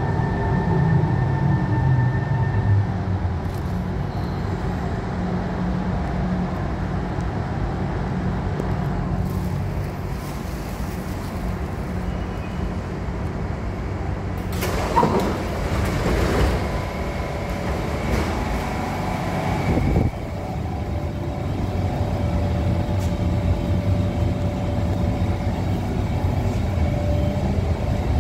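Kawasaki Heavy Industries C151 MRT train pulling into the station, its motor whine falling in pitch as it brakes to a stop over a steady rumble. About halfway through there is a sudden loud burst of door noise as the platform screen doors and train doors open. Near the end a steady hum from inside the train carriage can be heard.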